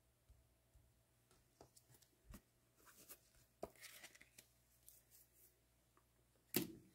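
Near silence with a few faint, scattered clicks and taps of trading cards and plastic card stands being handled, and a louder knock near the end.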